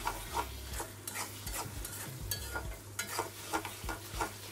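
Metal spatula scraping and tapping against the side and bottom of a metal pot as it stirs a thick dried-fish masala, in repeated irregular strokes a few times a second. A soft sizzle from the cooking masala runs underneath.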